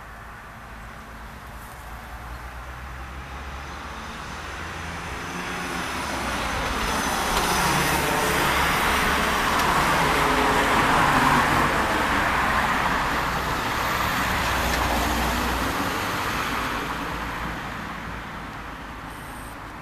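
A vehicle passing by: a broad rush of noise with a low rumble that slowly swells to a peak about halfway through and then fades away.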